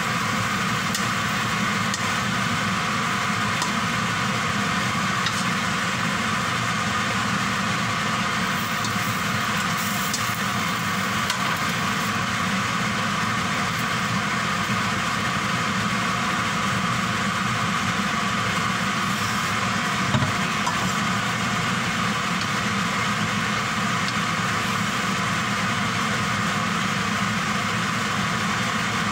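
Kitchen extractor fan running with a steady whir, with a few faint knocks of cookware.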